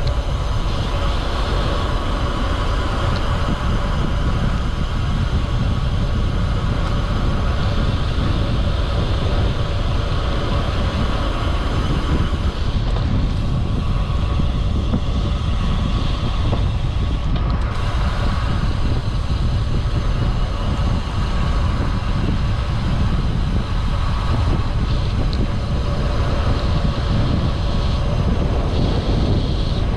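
Steady wind rumble on the microphone and road noise from a road bike riding at speed.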